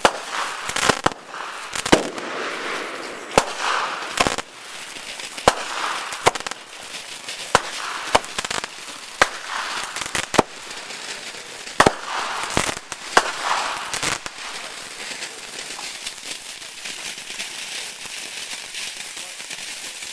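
Fireworks going off: sharp pops and bangs at irregular intervals over a hissing crackle. The pops stop about 14 seconds in, leaving a steady hiss.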